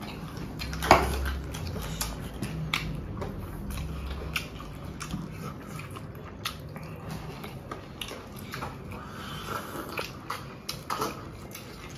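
People chewing and biting food, with scattered small clicks and taps. The sharpest tap comes about a second in, over a low steady hum.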